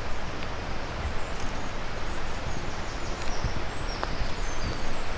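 Wind rumbling and rustling on the microphone, with small birds chirping in short high calls in the background.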